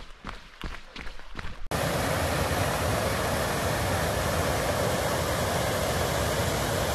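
Running footsteps on a trail, then, about two seconds in, a sudden cut to the steady, loud rush of water over small river waterfalls, which holds unchanged.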